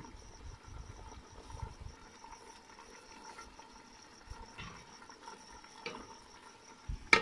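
Curry simmering softly in an open aluminium pot on the stove: a faint hiss under a steady high-pitched tone, with a sharp click just before the end.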